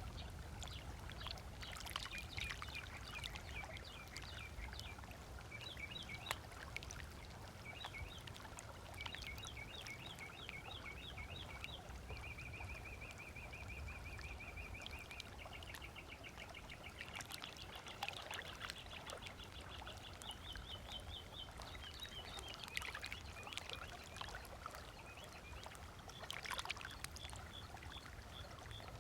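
Small waves lapping softly on a sandy lakeshore, under songbirds calling: runs of quick repeated chirps, a fast even trill about halfway through, and a longer series of rapid notes after it.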